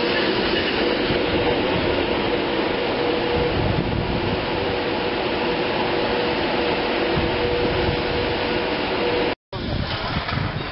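Class 390 Pendolino electric train moving slowly past at close range: a steady whirring hum with a faint steady tone running through it. About nine seconds in it cuts off abruptly, giving way to a more uneven, gusty noise.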